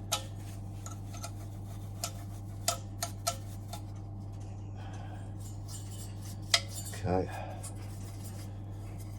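Scattered light metallic clinks and taps of boiler parts and tools being handled, about six sharp knocks spread over several seconds, over a steady low hum.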